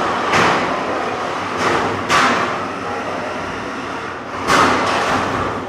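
Featherweight combat robots crashing into each other and the arena walls: three loud, sharp impacts, about half a second, two seconds and four and a half seconds in, over steady background noise.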